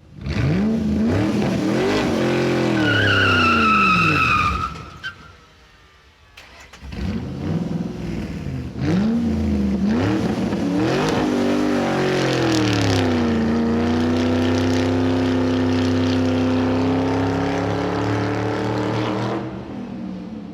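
A car engine revving hard and climbing through several gear changes, with a tyre squeal about three to four seconds in. The sound fades briefly around six seconds. Then the engine accelerates again through the gears and holds a steady high-speed note before dropping away near the end.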